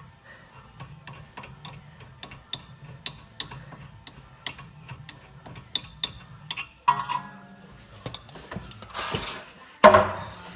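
Ratchet wrench clicking in irregular strokes, a few a second, as the lower brake caliper bolt is turned out. A scrape and a louder clatter of tools follow near the end.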